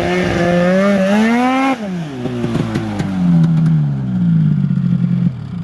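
Snowmobile engine revving up under throttle for a little under two seconds, then the throttle is cut and the revs fall away in a long falling whine until near the end.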